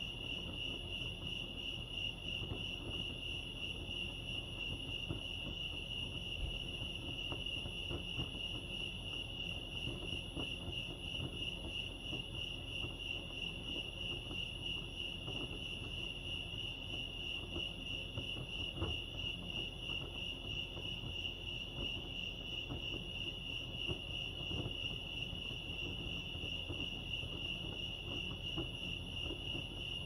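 Crickets chirping in a steady, unbroken high trill with a fast pulse, over a faint low rumble.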